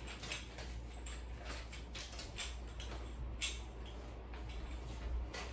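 Paper instruction manual being handled and leafed through: soft rustles and small clicks of the pages, irregular and scattered, over a steady low hum.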